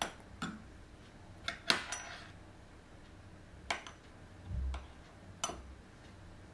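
Scattered light clinks and taps of metal cutlery against a ceramic plate, about six separate ones, the loudest about two seconds in, with a soft low thump just after the middle.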